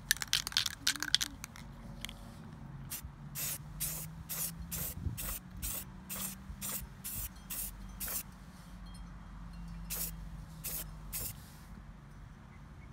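Rust-Oleum Painter's Touch aerosol spray paint can hissing in short bursts as a pink base coat is sprayed onto a deer skull. It gives a few longer sprays at first, then quick taps of the nozzle about two or three a second, and a last few bursts near the end.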